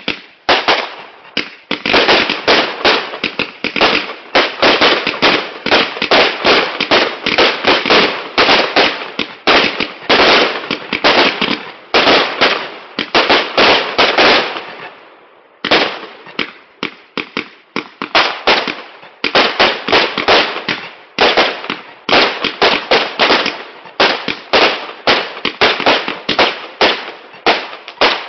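Brothers Pyrotechnics Hercules firework firing its finale: a rapid, near-continuous barrage of launches and bursting bangs. The barrage lets up briefly a little past halfway, then starts again just as dense.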